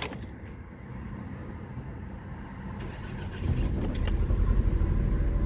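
2005 Nissan Altima four-cylinder engine being started with only two of its four ignition coils connected: a click of the key, the starter cranking for about three seconds, then the engine catching about three and a half seconds in and running with a heavy, even pulse.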